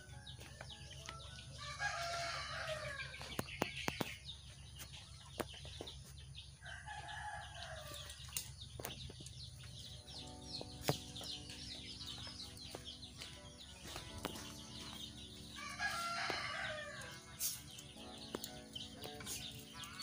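A rooster crowing three times, each crow about a second long, spaced several seconds apart.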